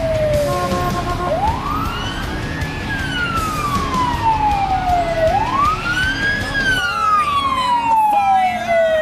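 Electronic wail siren on a red fire-department pickup responding with lights. The pitch climbs over about a second and a half, then falls slowly over several seconds, cycling about twice, over a low rumble of passing traffic.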